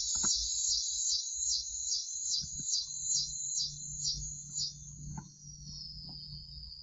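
Insects chirping in a high, pulsing rhythm of about four pulses a second, fading out about five seconds in. A faint low hum runs under the second half.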